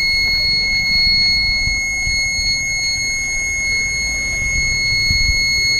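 Inverter's control-board buzzer sounding one continuous high-pitched beep, over a low rumble. It is the fault beep that keeps going with no low-battery or overload indication lit, which the technician suspects points to a faulty microcontroller.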